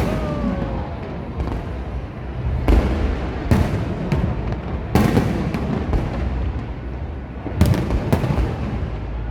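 Aerial fireworks going off: a string of sharp bangs a second or more apart, the loudest about three, five and seven and a half seconds in, over a continuous low rumble.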